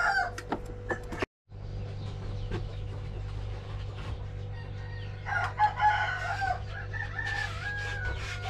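A rooster crowing, one long call of about three seconds starting about five seconds in, over a steady low hum.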